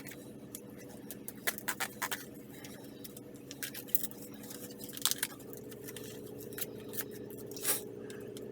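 Crinkling and crackling of an MRE cracker pouch being handled and opened, in scattered sharp bursts. A steady low hum runs underneath and shifts up in pitch about halfway through.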